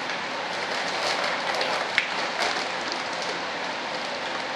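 Powdered floor-underlayment patching compound being handled and poured from a paper sack into a plastic bucket: a steady, dry hiss, with a light knock about two seconds in.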